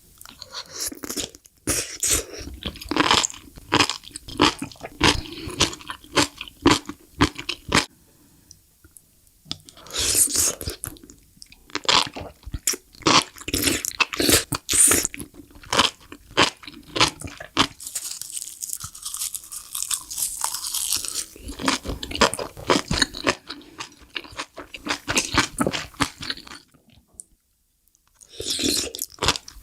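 Close-miked crunching and chewing of crunchy mushrooms, in bursts of sharp crackling bites and chews with brief pauses between them.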